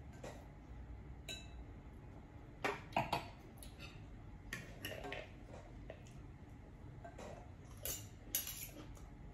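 Cutlery clinking and scraping against plates and a glass salad bowl as people eat and serve salad: a handful of scattered clinks, the loudest about three seconds in and again near the end.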